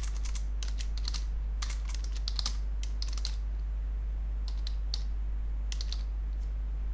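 Typing on a computer keyboard: quick runs of keystrokes with short pauses between them, thinning out in the second half. A steady low hum runs underneath.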